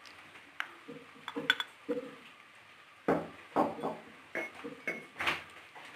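Kitchen utensils knocking and clinking against a mixer-grinder jar as coconut is put in: a string of light knocks, louder in the second half, some ringing briefly.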